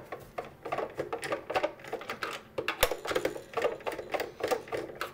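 Screwdriver turning screws out of a plastic boom box case: an irregular run of small clicks and scrapes.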